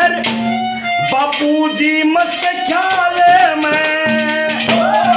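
Instrumental interlude of a Haryanvi ragni: a harmonium plays a melody over a steady low drone, with a rhythmic percussion beat and a shaker-like rattle.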